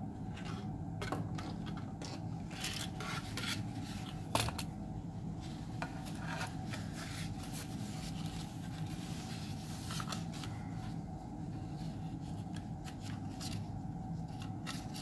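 Handling noise from fingers rubbing and scraping a thin servo wire and its small plug against the foam wing and fuselage of a micro RC airplane. Scattered light clicks and rustles sit over a steady low background hum, with a sharper click about four and a half seconds in.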